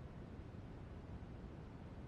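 Continuous synthetic noise, steady and even with no peaks or breaks, weighted toward the low end so it sounds more like a deep rush than a bright hiss.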